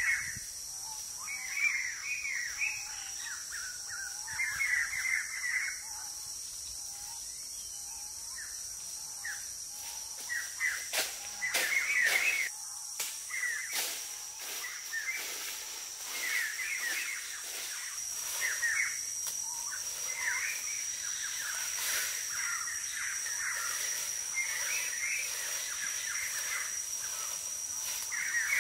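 Forest ambience: birds chirping and calling over and over, with a steady high-pitched whine running underneath. A few short, sharp clicks come about halfway through.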